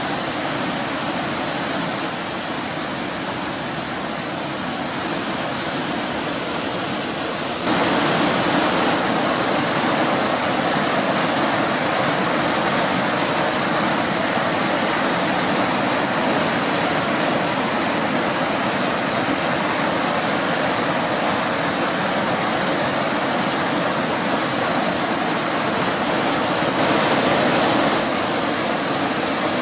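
A flooded mountain brook's falls and cascades rushing in high flood, a steady full roar of water. It gets suddenly louder about eight seconds in and swells again briefly near the end.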